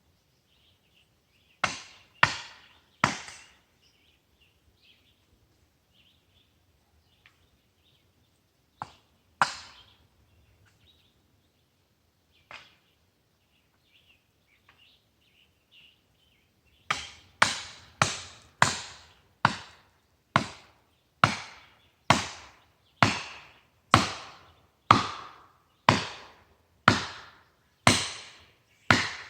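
Heavy blows driving a felling wedge into a dead ash trunk: three quick strikes, a few scattered ones, then a steady run of about one strike a second. Faint bird chirps between the blows.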